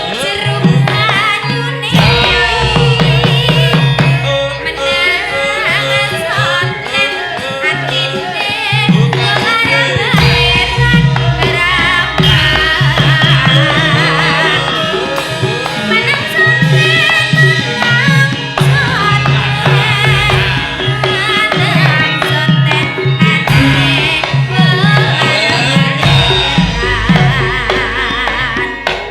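Live gamelan music with rapid kendang hand-drum patterns under a melodic line.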